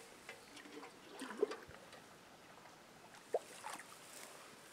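A metal cooking pot dipped into still water and filled, giving a few soft gurgles and small splashes.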